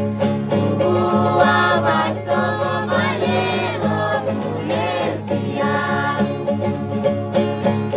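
String band music: an acoustic guitar strummed steadily, with voices singing together from about a second in.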